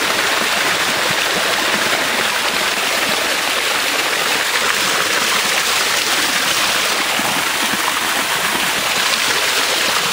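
Small waterfall spilling over rocks: a steady rush and splash of falling water.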